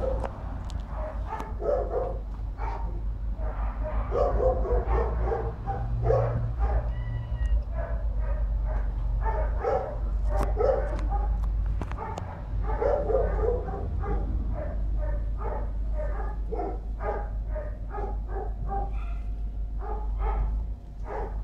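Several dogs barking repeatedly in quick, irregular runs of short barks, over a steady low rumble.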